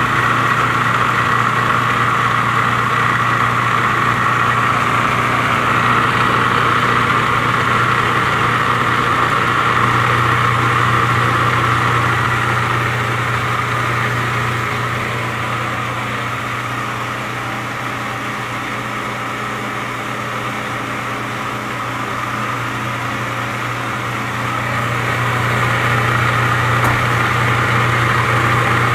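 Food processor motor running steadily as it blends beet hummus. It eases off a little about halfway through, then comes back up near the end.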